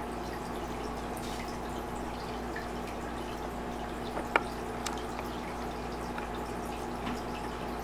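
Water dripping and trickling in an aquarium over a steady low hum, with a single sharp click about four seconds in and a few fainter ticks after it.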